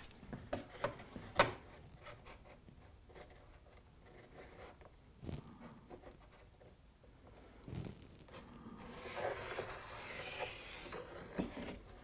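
A steel ruler is handled and set down on a board with a few light knocks and taps. Then a felt-tip marker pen scratches a line along the ruler's edge for about two seconds near the end.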